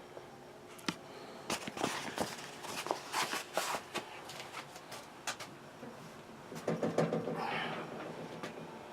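Scattered light clicks and knocks of a wrench and tools being handled on stuck old boiler pipework.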